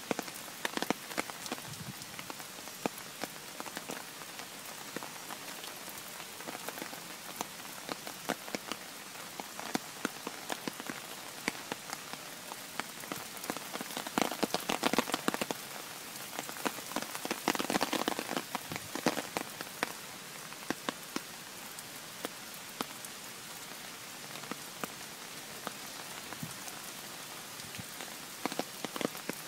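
Heavy rain pouring down onto a garden's ground, path and puddles: a dense steady hiss with many close drops ticking, growing louder in two spells around the middle.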